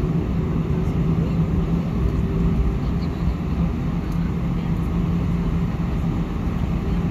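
Airliner engines and cabin noise heard from inside the cabin while the plane taxis: a steady hum with a low drone running through it.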